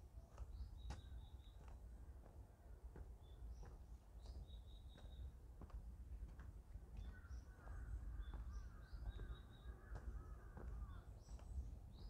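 Forest birdsong: a small bird repeats a short high phrase several times, a rising note followed by a quick run of three or four even notes. From about seven seconds in, a second, lower bird gives a run of short harsh calls for about four seconds, and soft footsteps on a forest path tick underneath.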